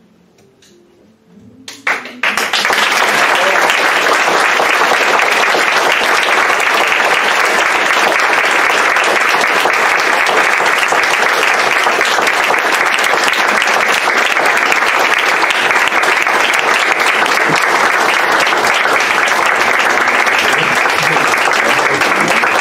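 Audience applause, breaking out suddenly about two seconds in after a short hush and going on steadily and loud.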